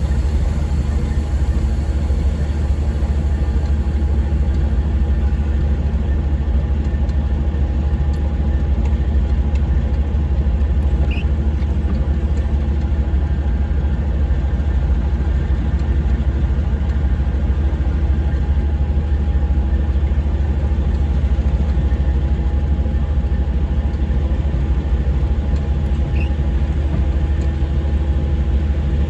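Semi-truck diesel engine running steadily at low speed, a constant low hum with no change in pitch, as the tractor-trailer is eased back toward a loading dock door.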